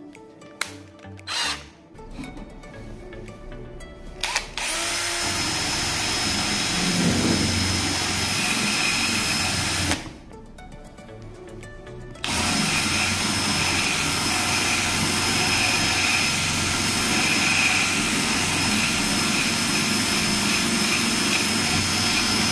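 Cordless drill spinning a small sanding drum on a mandrel, with a high motor whine, in two long runs with a pause of about two seconds between them; in the second run the drum is sanding across a wooden board. A few sharp clicks come in the first seconds, before the drill starts.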